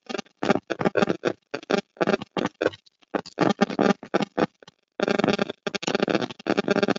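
Talking over a video-call link, chopped into short bursts with abrupt silences between syllables.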